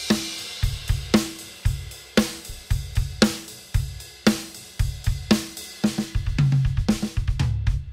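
Drum kit with Sabian cymbals played one-handed, the left foot working the hi-hat: a steady groove with a snare backbeat about once a second over bass drum and cymbal wash. Near the end it breaks into a busier fill on the toms, then stops.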